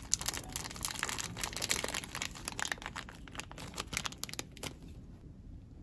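Thin plastic bag crinkling and crackling as it is handled, a dense run of small crackles that thins out near the end.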